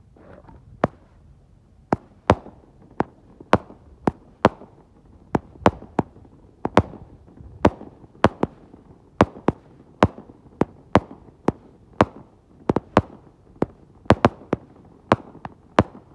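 Red Apple "Bump Bear" 200 gram repeater cake firing shot after shot, a run of sharp bangs about two a second.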